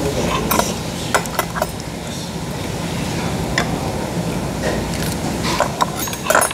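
Chopsticks clicking and scraping against a small stainless-steel bowl and side-dish plates while eating: a scattered handful of light clinks, busiest near the end, over a steady low hum.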